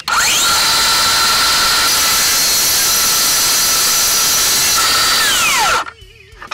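Circular saw with a Diablo 7¼-inch 48-tooth Cermet metal-cutting blade spinning up with a rising whine, then cutting through 1/8-inch steel pipe with a steady, loud, high-pitched screech. It winds down with a falling whine about five seconds in.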